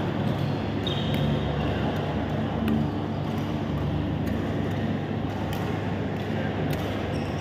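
Steady low hum and rumble of a large indoor badminton hall, with scattered sharp clicks of shuttlecocks being struck by racquets on the courts.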